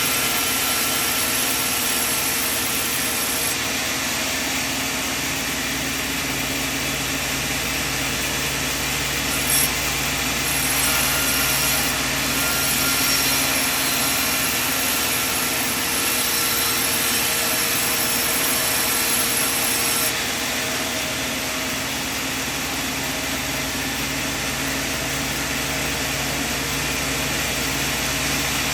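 Sawmill machinery running steadily with a continuous hum, with one short knock about ten seconds in.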